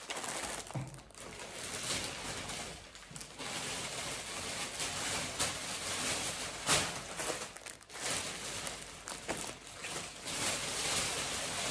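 Uneven rustling and handling noise, with a few sharper crackles, as things are rummaged through and picked up by hand.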